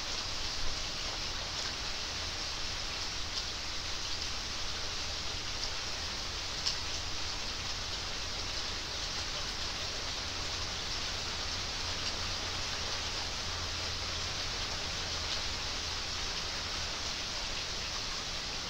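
Steady rain falling onto pool water and grass: an even hiss with a few single drops standing out, around a second in and again near the middle.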